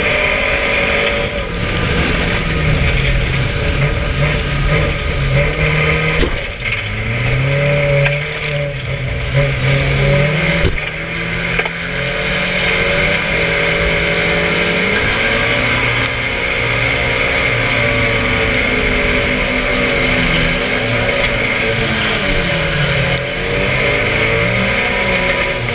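Race car engine heard from inside the cockpit, running hard and rising and falling in pitch again and again as the car accelerates and lifts around a short oval. Two sharp knocks, about six and eleven seconds in.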